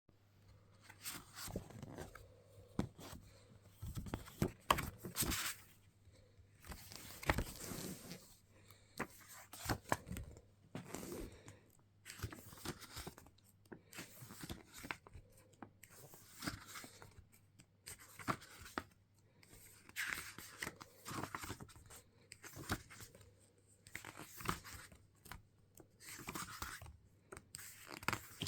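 A boxed music album being unwrapped and opened by hand: irregular tearing and crinkling of its wrapping, with short clicks and scrapes of the packaging being handled.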